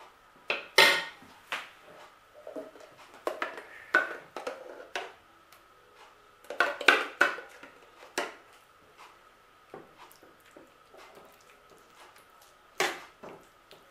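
A spoon clinking and scraping against dishes and the metal salad ring in scattered clusters of sharp clicks, as mayonnaise is scooped out and spread over the salad layer.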